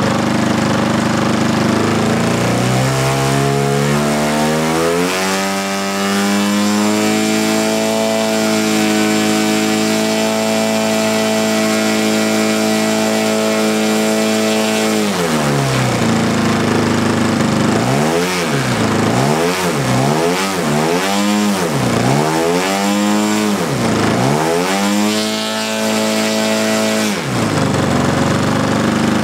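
Zenoah Titan 62 two-stroke gasoline engine on a giant-scale RC plane on a ground test run. It is throttled up to a steady high rev and held there, then dropped back to idle about halfway through and blipped up and down several times in quick succession, revving up again near the end.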